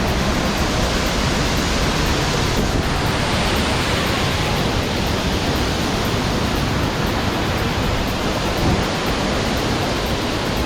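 Waterfall close by: a loud, steady rush of falling water that does not change.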